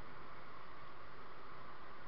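Steady road and wind noise inside a moving car, picked up by a dashcam's microphone as an even hiss.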